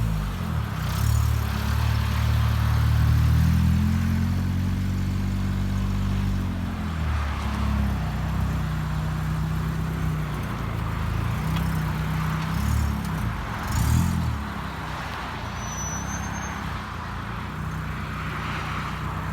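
A car sound system's subwoofer playing deep bass notes that hold and step from pitch to pitch, with a couple of sliding drops, and little of the rest of the music coming through.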